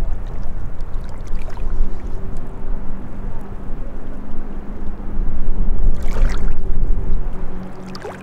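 Small waves lapping at a rocky lakeshore, with wind rumbling on the microphone and a steady drone of a distant motorboat engine that sets in about a second in. A louder splash of water comes about six seconds in.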